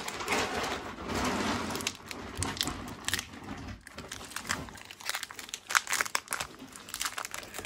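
Foil Pokémon booster pack wrapper being torn open and crinkled by hand: a rustle for about the first three seconds, then a run of sharp crinkles and crackles as the pack is worked open.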